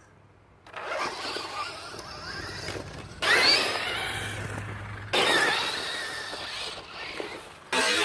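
Losi Rock Rey 1/10 electric RC rock racer driving over dirt: its electric motor whines up in pitch as it accelerates, over a steady rush of tyres on loose ground. The sound comes in several short passes, each starting abruptly.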